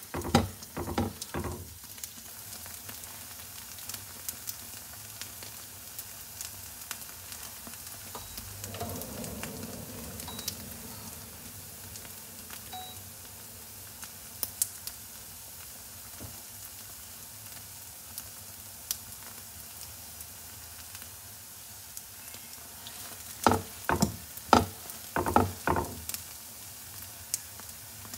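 Oil sizzling steadily under a slab of bánh chưng (sticky rice cake) pan-frying to a crisp crust. A spatula knocks against the pan a few times in the first couple of seconds, and a run of sharp knocks comes near the end.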